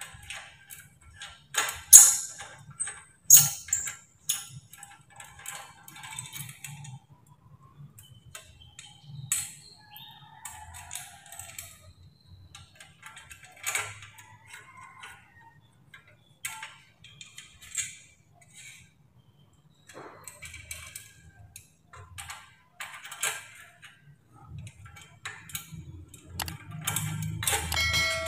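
Light metallic clinks, taps and clicks from an aluminium heat guard and a steel washer being handled and fitted against a scooter's muffler, the sharpest clicks about two and three and a half seconds in.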